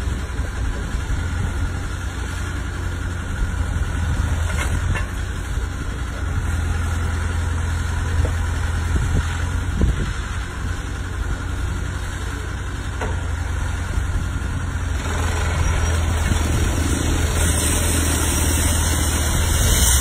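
Gentec GE970 hydraulic plate compactor vibrating a wooden pile down into the bottom: a steady low mechanical hum and rumble. A hiss rises near the end.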